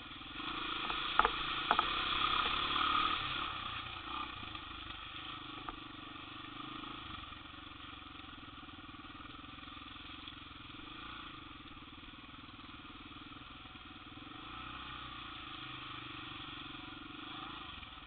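ATV engines running steadily, a little louder in the first few seconds, with two sharp knocks about a second in.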